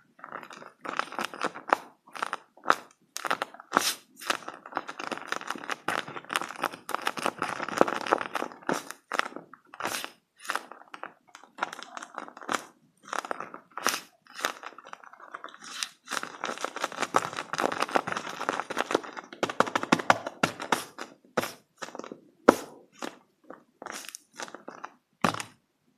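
Paper squishy being squeezed and handled, its paper and tape crinkling and crunching in dense runs with brief pauses, thinning to a few separate crackles near the end.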